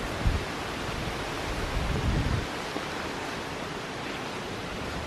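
Steady outdoor rushing of wind through the woods, with a couple of brief low bumps on the microphone, about a quarter second in and again around two seconds in.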